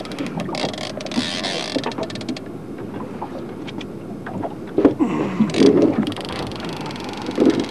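A salmon-fishing reel's drag clicking rapidly for the first two seconds or so as the hooked fish takes line, over a steady low rumble on the boat. Several louder knocks follow later on.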